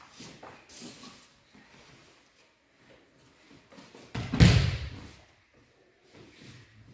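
A body hitting gym mats in an aikido breakfall as a child is thrown, one loud thud about four seconds in, with fainter soft knocks and rustles before it.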